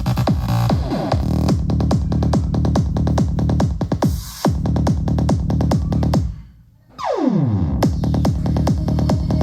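Electronic dance music with a steady, fast beat. About two-thirds of the way through it drops out briefly, and a downward pitch sweep leads the beat back in.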